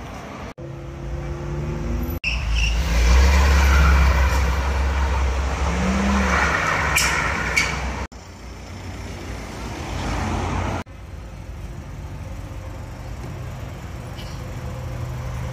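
A car engine revving hard with tyres spinning in a burnout, loudest a few seconds in and cutting off abruptly after about eight seconds. Quieter car engines idling and pulling away in traffic before and after.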